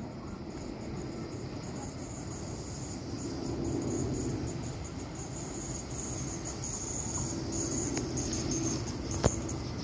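Cicadas singing steadily in the trees over a low background rumble; a single sharp click near the end.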